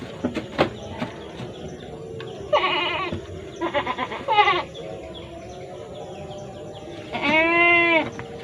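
Goat bleating: a quavering call about two and a half seconds in, a shorter one around four seconds, and a long, clear call near the end, which is the loudest.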